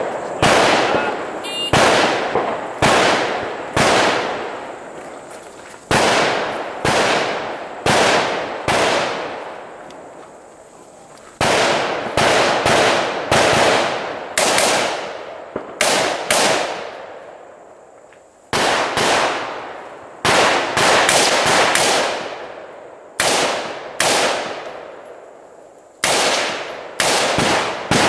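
AR-15 rifle firing a long series of single shots, roughly one a second in strings with a few short pauses, each shot followed by a long echoing decay.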